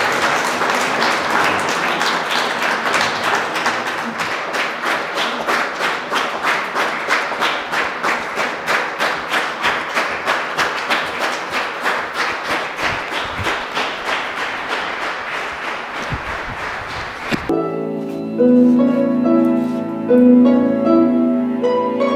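Concert audience applauding in a large hall, the clapping settling into a steady rhythm of about three claps a second. About seventeen seconds in, the applause cuts off suddenly and a harp with a string quartet of violins, viola and cello plays classical music.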